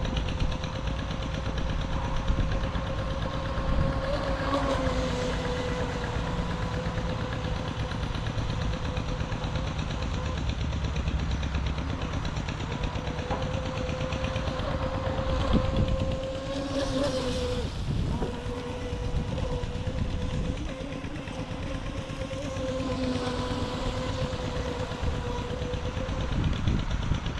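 UDI Arrow5 RC speed boat running on a 3S battery with a CNC propeller: its electric motor gives a steady whine that rises briefly in pitch now and then and drops out for short moments.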